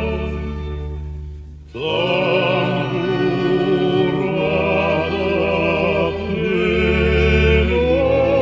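A man singing a slow song in long held notes with heavy vibrato, over sustained low accompanying notes. The voice fades and breaks off for a breath just before two seconds in, then comes back strongly.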